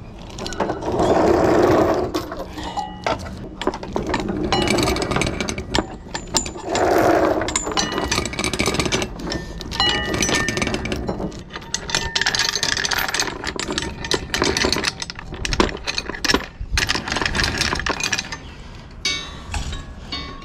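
Galvanised anchor chain rattling and clinking as it is handled, with irregular bursts of metal-on-metal knocks and brief ringing clinks.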